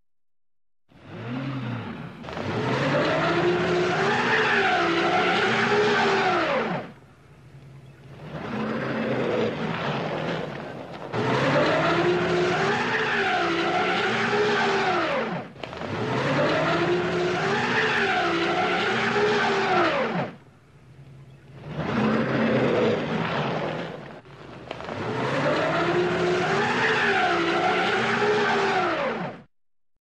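Car engine revving, its pitch wavering up and down, while the tyres skid as the car spins on ice. It comes in about six passes of a few seconds each, with short drops in level between them.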